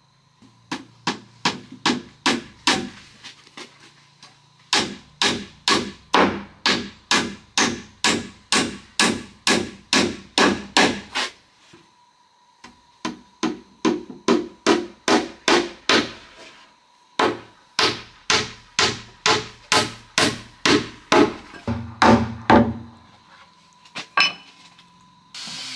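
Hammer striking wood in steady runs of about two blows a second, with short pauses between the runs and one last blow near the end.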